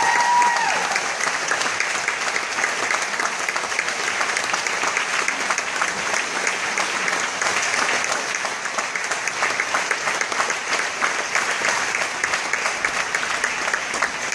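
Audience applauding steadily, dense clapping that eases off slightly toward the end.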